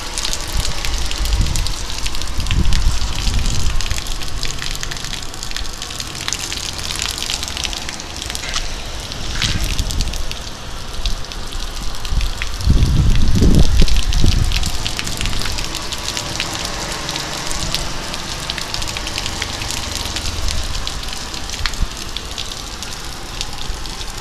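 Water from a garden hose spraying and pattering steadily on a bicycle's rain canopy, simulating a heavy squall. A louder low rumble swells about 13 seconds in.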